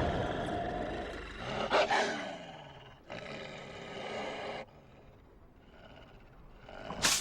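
Wolf roaring and snarling in an animated fight, in two drawn-out calls; the second cuts off abruptly. A short, loud hit lands between them about two seconds in.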